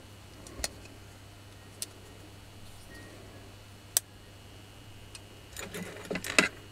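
Small metal parts clicking sharply as they are handled in the fingers, a few separate clicks, then a quick run of clattering rattles near the end.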